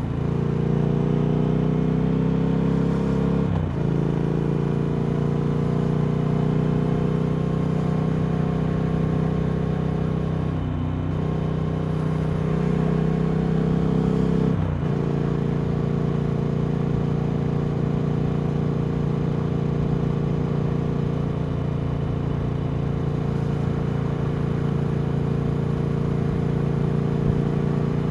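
Triumph Speed Twin 1200's parallel-twin engine running through Vance & Hines slip-on exhausts while riding. It pulls with gently rising pitch, breaks briefly for gear changes about four seconds in and again around fifteen seconds, then holds a steady cruise.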